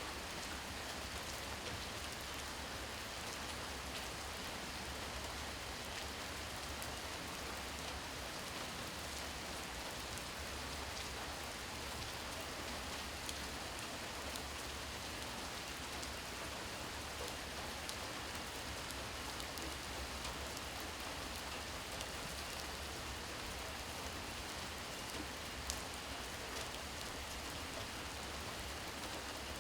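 Steady rain falling at night, an even hiss of drops with a few louder single drops ticking close by, one about a third of the way in and another near the end.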